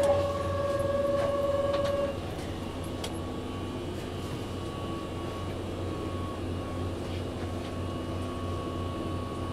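A steady electronic warning tone sounds for about two seconds as the train's doors close, then cuts off, leaving the steady low hum of the Keihan 8000 series train with a few faint ticks.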